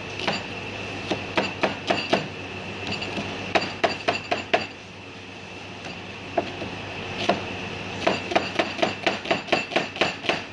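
Cleaver chopping an onion finely on a plastic cutting board: sharp knocks in short bursts, a pause midway, then a fast run of about four chops a second near the end.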